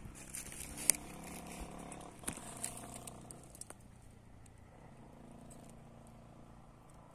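Faint, steady engine hum that fades over a few seconds, broken by a few sharp clicks and crackles, the loudest about a second in.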